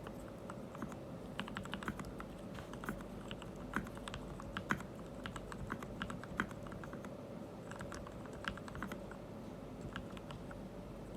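Typing on a MelGeek Mojo68 mechanical keyboard with filmed Gateron Ink V2 Black linear switches: an irregular run of keystrokes, busiest in the first half and thinning out later.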